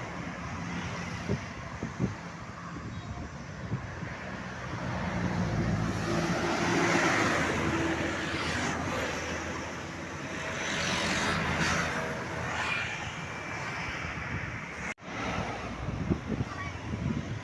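Roadside traffic with engine and tyre noise, swelling as a vehicle passes about six to eight seconds in and again around eleven seconds. The sound drops out sharply for a moment near the end.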